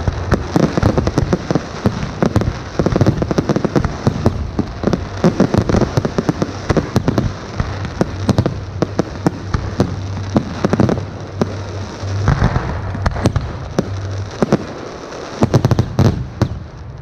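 Fireworks display: a dense, rapid barrage of shell bursts and crackle, ending in a last cluster of loud bangs near the end.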